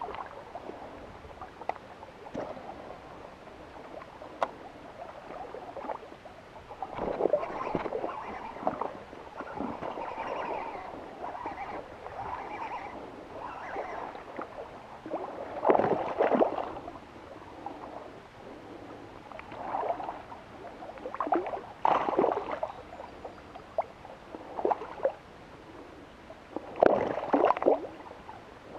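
Water splashing in irregular bursts from a lure hitting the water and a hooked largemouth bass thrashing at the surface, with several loud splashes in the second half.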